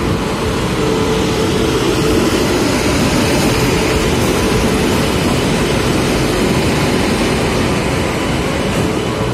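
A WAP-7 electric locomotive and its coaches rolling past along a platform as the train arrives: a loud, steady rumble of wheels on rail, with a steady hum that is strongest in the first few seconds while the locomotive goes by, then the coaches rolling past.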